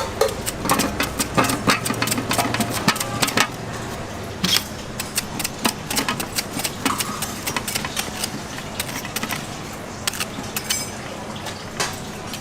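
Knife chopping fruit on a cutting board in quick, irregular runs of sharp taps, over a steady background hum.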